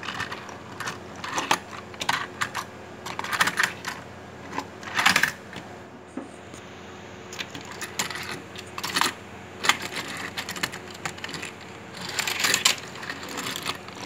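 Irregular clicks, taps and rattles from a die-cast toy truck and its trailer being handled and set down on a wooden desk, coming in short clusters every second or two.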